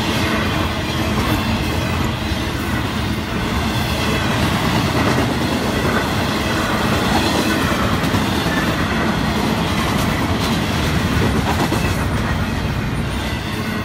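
Florida East Coast Railway double-stack container freight cars rolling past at close range: the steady noise of steel wheels running on the rails, with no pause between cars.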